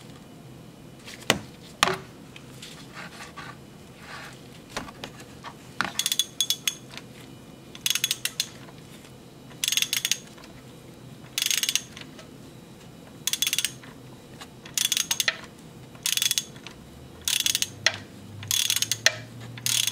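Half-inch ratchet clicking in short bursts as its handle is swung back between strokes, loosening the 24 mm hex of an oil filter housing cap counterclockwise. There are two sharp knocks a little over a second in; the bursts of rapid clicks come about every one and a half to two seconds from about six seconds on.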